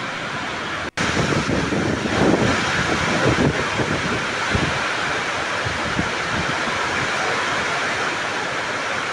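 Steady loud rush of rain with wind noise on the microphone, cut off for an instant about a second in, with uneven low rumbles of wind buffeting for a few seconds afterwards.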